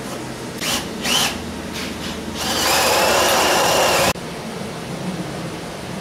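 Cordless drill running into wooden framing for about a second and a half, a steady motor whine that cuts off suddenly. A couple of short bursts come a second or so earlier.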